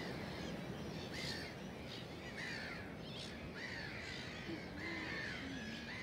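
A large feeding flock of gulls calling over one another: a continuous chatter of many short cries, with a few sharper, higher calls standing out about a second in and again around three seconds.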